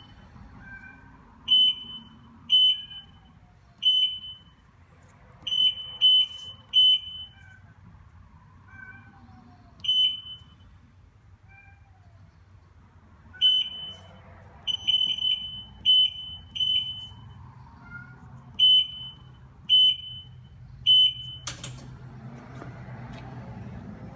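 Short, high electronic beeps at irregular intervals, about sixteen of them, from the keypad of an automatic A/C recharge machine as its settings are entered. Near the end a motor in the machine starts with a low steady hum.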